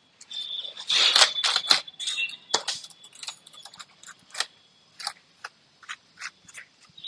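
Brush bristles scrubbing over a dusty laptop keyboard: a run of short scratchy strokes and light clicks off the keycaps, densest and loudest about a second in, then sparser.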